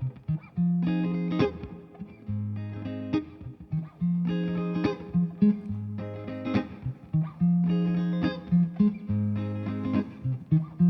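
Instrumental intro of a soul/R&B band song: electric guitar chords over sustained bass notes, in a phrase that repeats about every two seconds.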